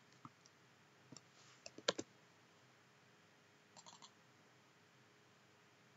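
Faint computer keystrokes and mouse clicks over near-silent room tone: a few separate clicks in the first two seconds and a short cluster of clicks just before four seconds in.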